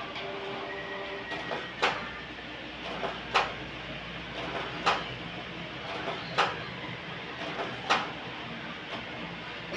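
Brother DCP-T300 inkjet printer giving five sharp, loud clicks about every one and a half seconds, with a few fainter clicks in between, over a steady low hum.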